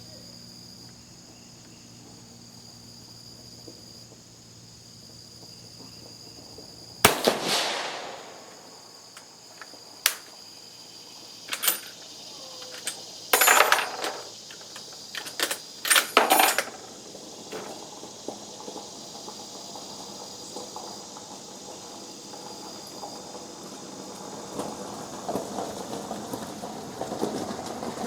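A single shot from an Italian Vetterli 1870/87/15 rifle converted to 6.5 mm, the report ringing on for about a second, followed a few seconds later by a run of sharp metallic clicks and clacks as the bolt is worked.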